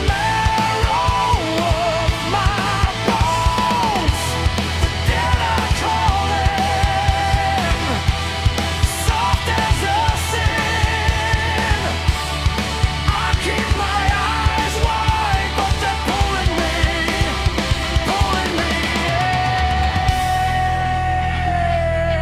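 Heavy rock music: drums keep a steady beat under a heavy low end while a wavering lead melody plays above. Near the end the melody settles into one long held note.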